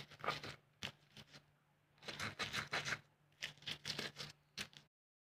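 Stone pestle (ulekan) crushing and grinding garlic, chilies and spices in a black stone mortar (cobek): irregular bursts of scraping, crunching strokes that stop abruptly near the end.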